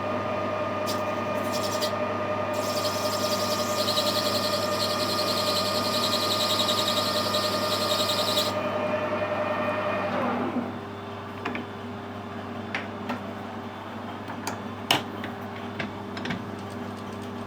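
Metal lathe running with a steady motor whine while the tool takes a light clean-up cut on a brass bar, with a bright hiss during the cut. About ten seconds in, the lathe is switched off and its whine falls away as the spindle runs down, followed by a few small clicks of handling.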